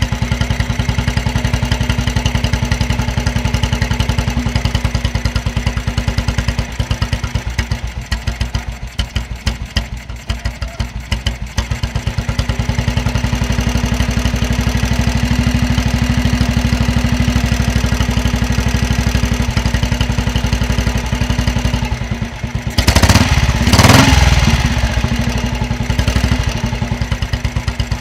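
Engine of a 1936 NSU motorcycle idling with distinct, even firing beats. About ten seconds in the idle slows and the beats spread apart, then it picks up and runs steadier; near the end the throttle is blipped in a short, loud rev before it drops back to idle.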